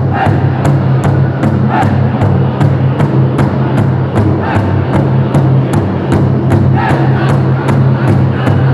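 Powwow drum group striking a large shared powwow drum in a steady beat, about three strokes a second, while the men sing together over it in strong voices.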